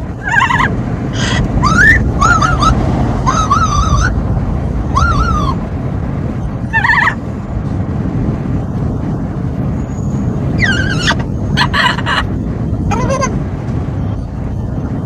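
Amazon parrot calling in short, wavering whistled squawks, again and again with a pause midway, over the steady rumble of a moving car and wind.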